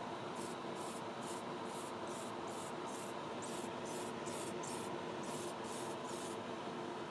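Quick rhythmic rubbing strokes, about fifteen in six seconds (two to three a second), over a steady machine hum, stopping near the end.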